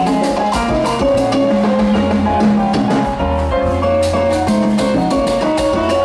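Live salsa band playing, with a repeating bass line and busy percussion strokes under sustained melodic notes.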